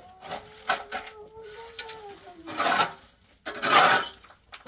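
Rough scraping or rubbing strokes: two short ones in the first second, then two longer ones in the second half.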